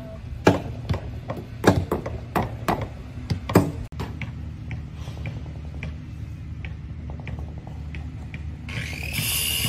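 Irregular hammer knocks on wood, as in work on a wooden boat hull, loudest in the first four seconds and fainter after, over a steady low hum. Near the end a higher whine rises and then holds.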